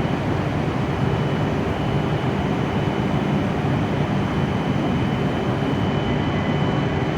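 W7 series Shinkansen train standing at the platform, its onboard equipment giving a steady hum and whir with a thin high tone running over it.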